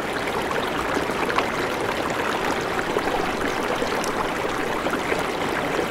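Steady rushing, splashing water that cuts off suddenly near the end.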